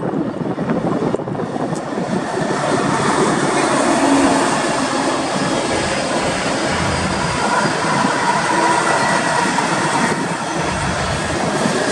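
A consist of Union Pacific diesel-electric freight locomotives, EMD SD70M units followed by a GE ES44AC, passing close by with their engines running and wheels rumbling on the rails. The sound builds as the locomotives approach, is loudest about four seconds in, and stays steady as the rest of the units go by.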